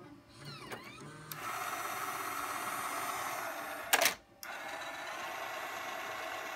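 Jukebox Five automated floppy disk changer cycling disks through a Macintosh floppy drive. A steady mechanical whirring is broken about four seconds in by a loud clack, then the whirring starts again.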